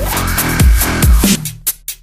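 Electronic dance music in a drum and bass/dubstep style: heavy bass kicks about twice a second under a bass line, with a short break near the end.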